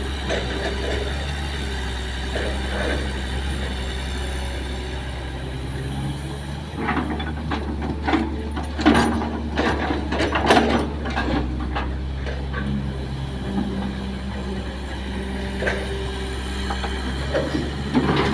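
Kobelco hydraulic excavator's diesel engine running steadily, with a burst of loud clattering knocks for several seconds around the middle, typical of the bucket working as soil is loaded into a dump truck.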